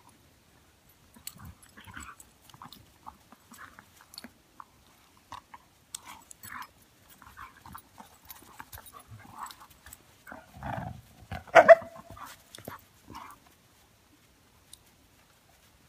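A Newfoundland and Airedale terriers playing together: scattered short dog noises and scuffles, with one short, louder bark about three-quarters of the way in.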